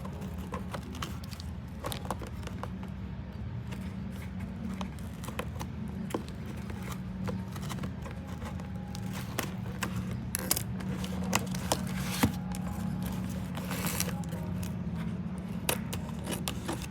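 A sealed package being handled and opened: scattered clicks, taps and scrapes of packaging, more frequent in the second half, over a steady low hum.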